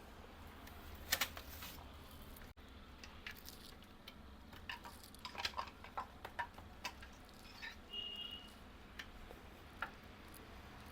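Faint, scattered clicks and light taps of a laptop's parts and display cable being handled and connected, over a low background hum, with a brief faint high tone about eight seconds in.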